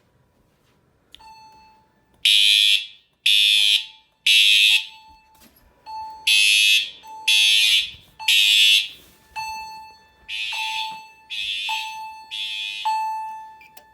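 Fire alarm system in alarm, set off by a smoke detector: horns blasting in the temporal-three pattern, three blasts about a second apart and then a pause. Under the blasts a chime tone strikes and fades about once a second. The last group of blasts is quieter.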